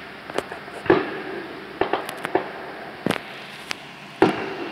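Aerial fireworks bursting in the night sky: a string of about nine sharp bangs, loudest about a second in and again near the end, each trailing a short echo.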